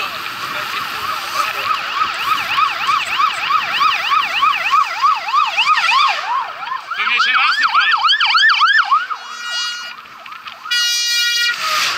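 Emergency-vehicle siren sounding a fast, repeating rise-and-fall wail. About halfway through it switches to a higher, quicker pattern. Near the end come two long, steady horn blasts.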